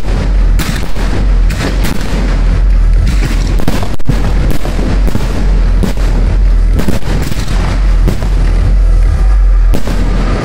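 Aerial fireworks shells bursting in a dense, unbroken barrage: loud overlapping bangs, often one or two a second, over a constant deep rumble.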